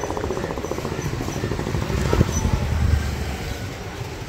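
Street traffic with a motor scooter passing close: its engine putters rapidly, then rumbles loudest about two to three seconds in, with a sharp knock just before.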